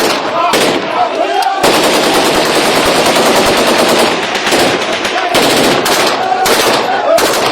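Automatic gunfire: a few separate shots, then a long unbroken burst from about a second and a half in to about four seconds, then more scattered shots. Voices of a crowd carry underneath.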